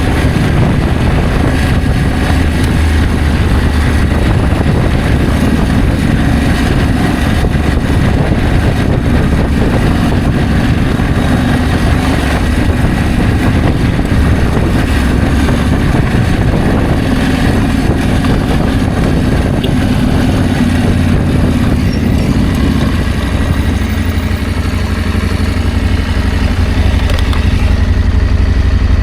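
Adventure motorcycle engine running steadily while being ridden; the engine note eases about three quarters of the way through.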